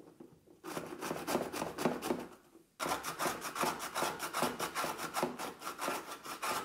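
Boiled beetroot, then boiled carrot, pushed back and forth over a plastic box grater: quick grating strokes, several a second, in two runs with a brief pause about two and a half seconds in.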